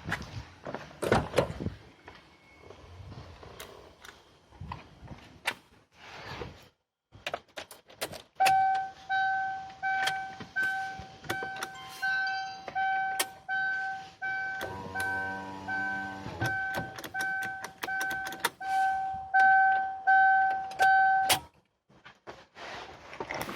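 Whistle from a 2007 Chevrolet Aveo 1.2: one steady high tone that comes and goes in repeated pulses, a bit under one a second, starting about a third of the way in and stopping shortly before the end. Scattered clicks and knocks come before it.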